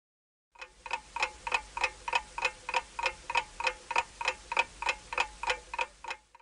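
Countdown-timer clock ticking sound effect: even, sharp ticks about three a second. They start about half a second in and cut off just before the end.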